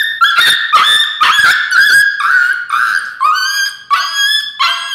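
Young Aspin dog crying out in pain at a vaccine injection: a rapid, continuous series of high-pitched yelps, about two to three a second.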